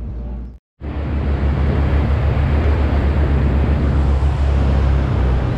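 A sportfishing boat's engines running under way: a steady low drone under a loud, even rush of wind and water. A brief break to silence comes less than a second in, after which it runs on steadily.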